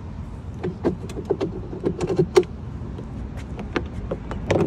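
A run of irregular sharp clicks and knocks over a steady low rumble of street traffic.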